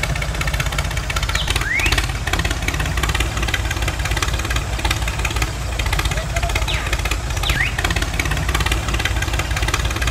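Engine running steadily with a low, even chug, like a tractor engine idling. A few short rising chirps sound over it.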